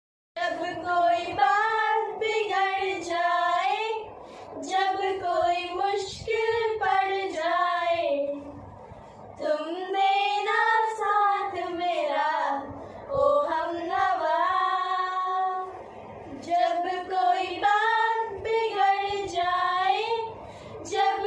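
A group of four girls singing a song together without instruments, in sung phrases with short breaks between them.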